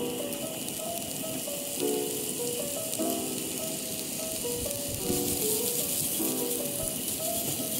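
Julienned carrots sizzling in hot oil in a frying pan, a steady high hiss. A simple background melody of short plucked-sounding notes plays alongside.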